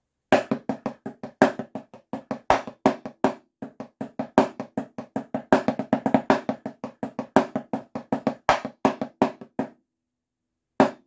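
Wooden drumsticks playing a drumline snare groove on a drum practice pad: fast, even sixteenth-note strokes with regular accents in a 3-3-2 pattern, gallops and sixteenth-note triplets. It breaks off, then a few more quick strokes come near the end.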